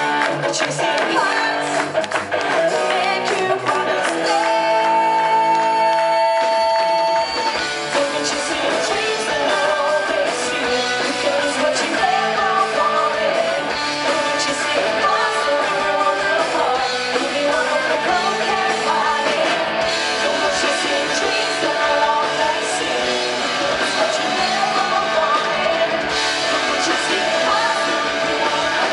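Rock band playing live: guitars and a sung vocal. A held chord rings with no bass under it, then the full band with bass comes back in about seven seconds in.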